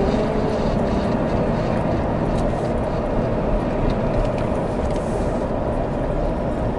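Steady road and engine noise of a vehicle driving over a rough dirt track, with a few faint clicks.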